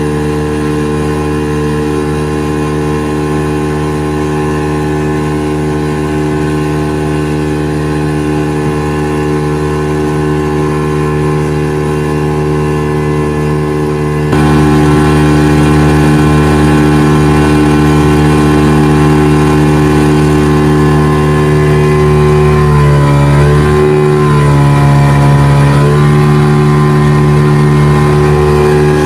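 40 hp outboard motor running at high, steady throttle while towing a banana boat under load, heard close up. It gets louder about halfway through. About three-quarters of the way in, its note dips and climbs back twice.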